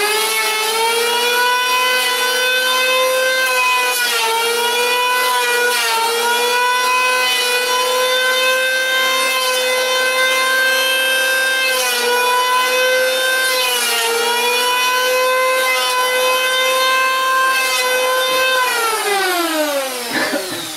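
Corded electric circular saw running at speed and cutting a notch in a small wooden block, its whine dipping in pitch briefly several times as the blade bites into the wood. Near the end it is switched off and the whine falls away as the blade spins down.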